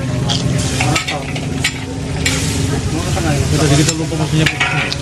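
Food sizzling in a wok and a metal spatula scraping and knocking against it, a stall cook stir-frying noodles or fried rice, with short sharp clicks scattered throughout over a steady low hum.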